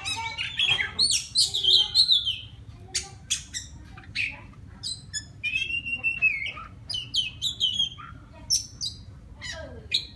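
Male oriental magpie-robin singing to call a female: a varied run of whistles, harsh squawky notes and quick chirps, busiest and loudest in the first two seconds or so, then shorter separate phrases.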